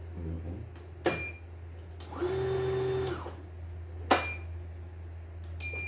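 CNY E900 embroidery machine being run: its control-panel buttons give three short beeps, two of them with sharp clicks, about a second in, about four seconds in and near the end. Between the first two, a motor in the machine whirs steadily for about a second.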